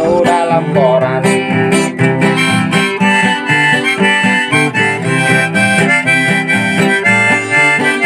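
Background music: a harmonica melody over acoustic guitar, with a steady beat.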